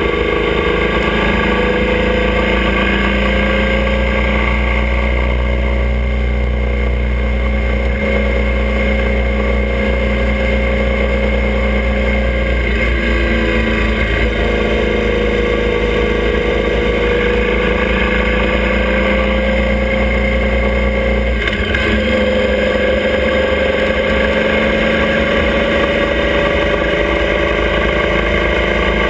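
Motorcycle engine of a sidecar outfit running under way at road speed, heard from on board. Its note climbs slowly as it pulls, dips briefly about halfway through, and changes again about three-quarters of the way in before climbing once more.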